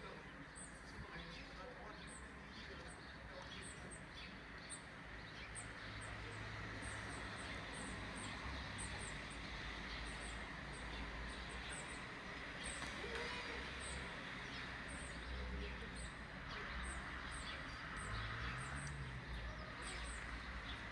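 Outdoor ambience of short, high-pitched chirps repeating about once or twice a second over a steady low rumble and hiss, with a brief low tone that rises and falls near the end.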